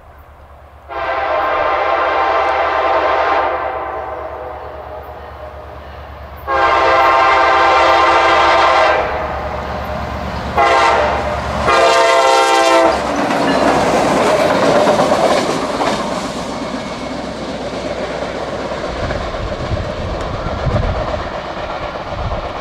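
CSX diesel locomotive blowing its multi-chime air horn in the grade-crossing signal, two long blasts, a short one and a long one, over the low drone of its engine. Then the locomotive and its single tank car pass with a loud rumble and wheels clicking over the rail joints.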